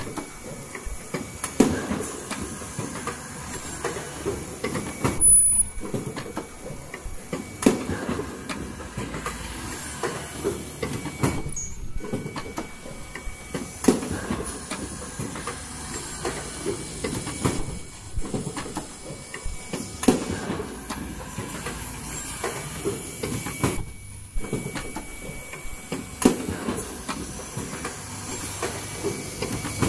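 Automatic N95 cup mask production machine running: a steady mechanical clatter with a louder clack about every two seconds as the machine cycles, and short high-pitched chirps every few seconds.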